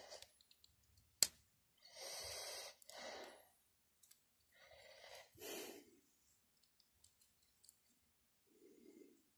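A person breathing quietly close to the microphone, a few soft breaths, with one sharp click of plastic Lego bricks about a second in.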